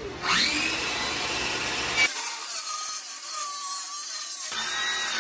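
Handheld circular saw on a guide rail ripping through a sheet of 18 mm marine plywood: the motor spins up with a rising whine just after the start, then the blade cuts steadily through the wood.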